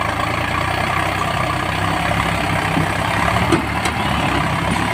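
Diesel tractor engines running steadily together under load while hauling a loaded trolley through mud.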